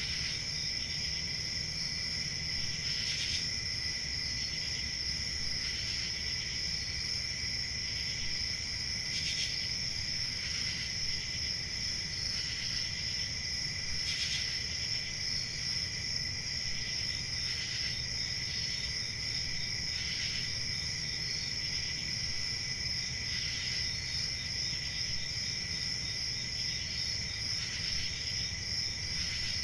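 Crickets chirping in a steady chorus of high trills, with a low background hum and a brighter pulse about every second or two.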